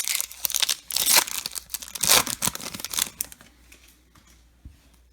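A baseball card pack wrapper being torn open and crinkled: a run of crackling bursts, loudest about one and two seconds in, dying away after about three seconds to faint handling ticks.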